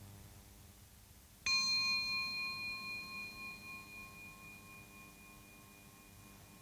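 A small singing bowl struck once with a wooden striker about a second and a half in, ringing with several pitches at once that fade slowly with a gentle waver in loudness. It is rung as a meditation bell, the listeners focusing on it until the ringing dies away.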